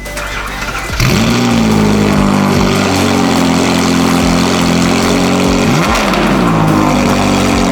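Ferrari 360's V8 with a catless Capristo exhaust, coming in loud about a second in with a quick rise in pitch, then holding a steady high rev. Near six seconds the pitch drops and climbs back, and the sound cuts off suddenly at the end.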